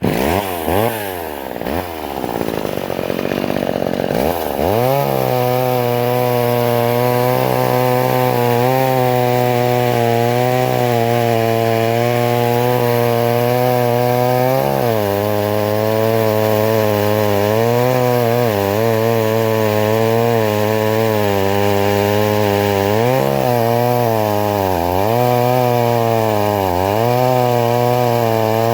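McCulloch Mini Mac 35, a small two-stroke chainsaw, running loud: its pitch swings up and down for the first few seconds, then holds high and steady at full throttle, with a few brief dips in pitch in the second half, as when the chain is cutting wood. It is running again after its seized carburettor was freed.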